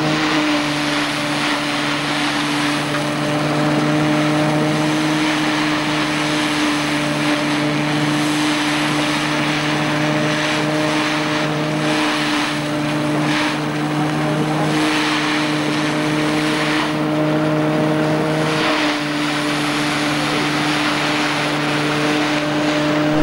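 Threshing mill running at work, belt-driven by a vintage tractor, as sheaves of oats are fed into its drum. It gives a steady hum with a rushing noise over it that rises and falls.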